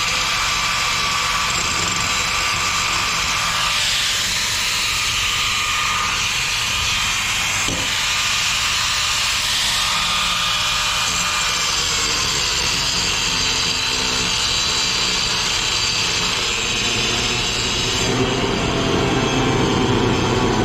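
A motor or engine running steadily throughout, its pitch easing down a little about halfway through and a deeper rumble building near the end.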